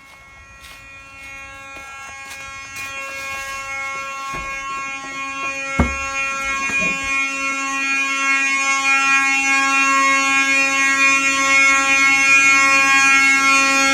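Fire alarm horns sounding a fire drill: a steady, harsh buzzing tone that grows much louder, with a few clicks early on and a single knock about six seconds in.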